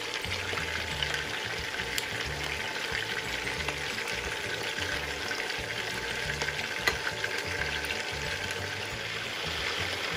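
Chicken thighs and celery frying in hot oil in a shallow pan: a steady sizzle with fine crackling, and a couple of sharper pops.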